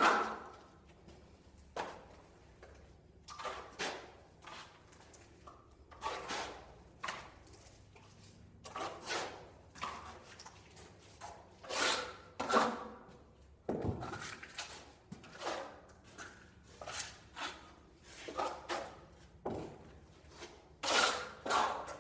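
Steel plastering trowel scraping white set finish plaster off the hawk and spreading it onto a wall, in irregular scraping strokes roughly one or two a second. A dull knock comes about two-thirds of the way through.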